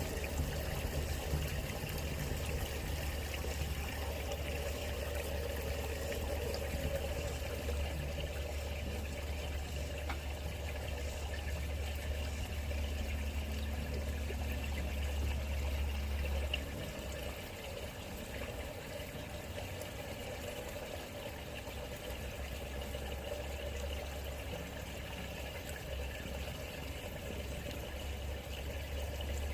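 Water running steadily, with a low hum under it that drops away a little over halfway through.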